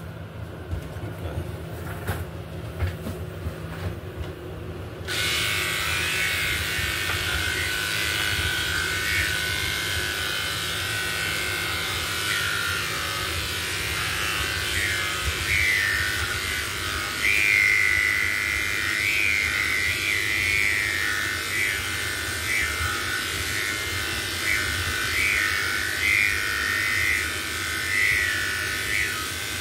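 Electric pet hair clippers switched on about five seconds in and running steadily, their pitch wavering as the blade cuts through a cat's fur.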